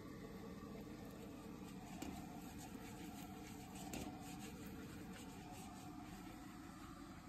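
Metal spatula scraping and clinking against a wok as noodles are stir-fried, over a steady low hiss; sharper clinks come about two and four seconds in.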